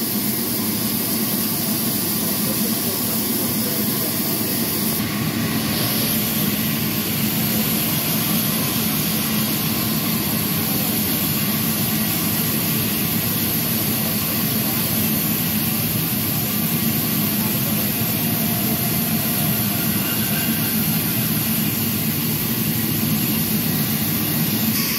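Horizontal band sawmill running steadily with a loud, continuous mechanical noise, a low hum under a high hiss that grows brighter about five seconds in.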